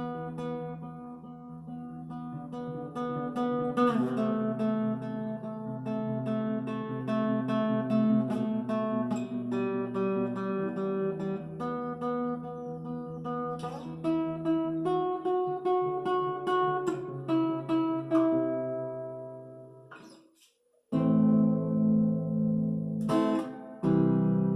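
Epiphone Lil Tex travel acoustic guitar played solo, with picked notes and chords ringing out. The playing fades to a brief stop about twenty seconds in, then loud strummed chords start again.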